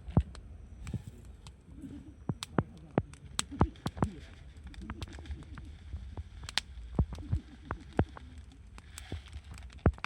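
Wood campfire crackling, with sharp snaps and pops at irregular intervals over a low steady rumble.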